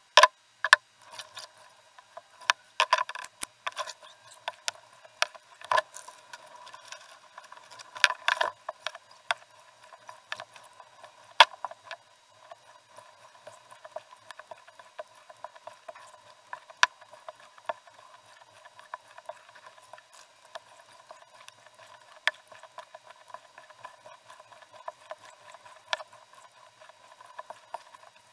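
Open canoe being paddled: paddle strokes in the water and knocks against the hull, heard as irregular clicks and taps over a thin, steady hiss with no low end. The taps come thickest in the first ten seconds.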